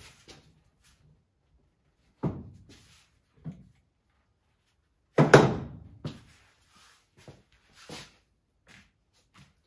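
A few separate knocks and clanks of metal work at a bench vise clamping a drive shaft: one about two seconds in, a lighter one a second later, and the loudest about five seconds in, ringing briefly, followed by lighter knocks and handling noises.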